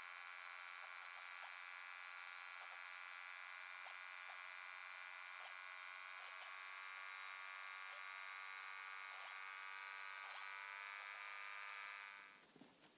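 Air compressor running with a steady whining hum made of many tones, with scattered light clicks, and cutting off suddenly about twelve seconds in.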